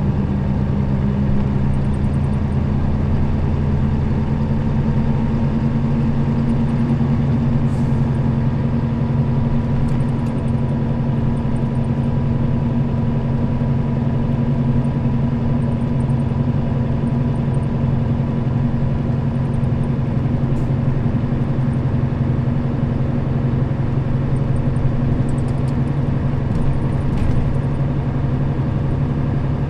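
Nissan Diesel KL-RA552RBN route bus under way, its diesel engine droning at a steady, unchanging speed, with a few faint rattles.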